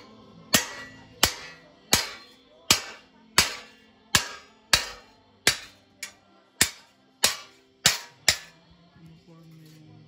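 Hammer striking a galvanized steel sheet over an angle bar to fold its edge: about a dozen sharp metallic blows, roughly one every 0.7 seconds, each ringing briefly. The blows stop shortly before the end.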